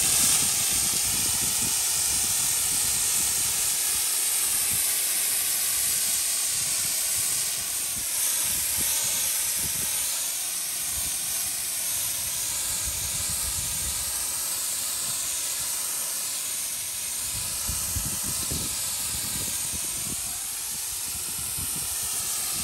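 Spray adhesive hissing out of its nozzle in one long continuous spray onto carpet and PVC board. Its tone shifts slowly as the spray moves.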